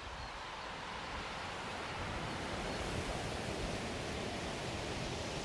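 Steady, even wash of distant sea surf, ambient sound over the bay, growing slightly louder.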